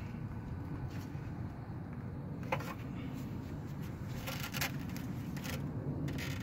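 A Suzuki XL7 ignition coil's wiring connector being worked loose by hand: a few short clicks and scrapes, one about two and a half seconds in and several more in the second half, over a steady low rumble.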